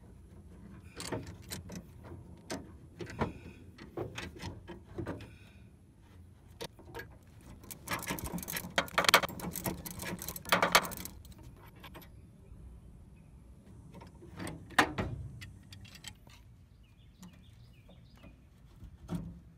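Ratchet with a 19 mm socket clicking fast for about three seconds, some eight seconds in, as it takes out the bolt that holds the front-beam arm to the center pin. Scattered metal clinks and taps of hand tools come before it, and one sharp knock sounds near the fifteen-second mark.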